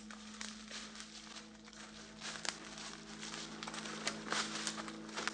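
Footsteps on a path of dry leaves and twigs, a dense crackling that grows louder as the walkers come closer, over a steady low hum.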